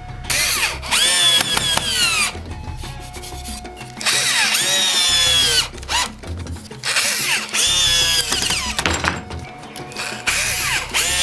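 Electric drill-driver driving wood screws into pallet wood, in about four separate runs of motor whine; the pitch shifts as each screw bites and seats.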